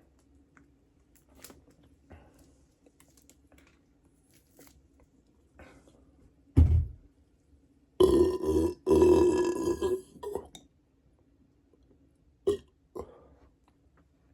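Burping from a stomach bloated with soda: a short, low burp about six and a half seconds in, then a long, loud burp of about two and a half seconds with a brief break, and two short ones near the end.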